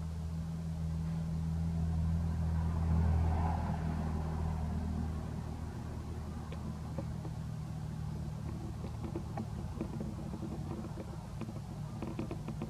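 A steady low motor hum, like a vehicle engine running, swelling about three seconds in and then easing off, with faint scattered clicks.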